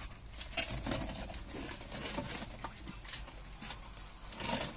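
Light scattered scraping, knocking and rustling as a dug-out ceramic squat-toilet pan is handled and lifted from loose soil and dry leaves.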